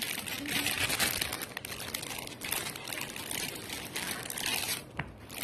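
Packaging crinkling and rustling as it is handled and unwrapped, dying away near the end with a single light click.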